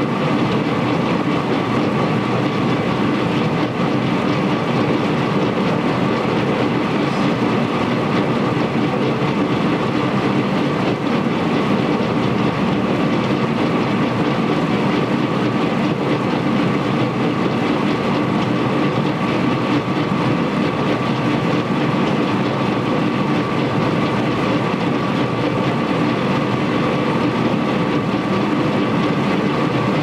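Ferrara MX LP220 abrasive potato washer-peeler running steadily, a dense rattling of potatoes tumbling and knocking over its spinning abrasive rollers under water spray, with a steady machine tone underneath.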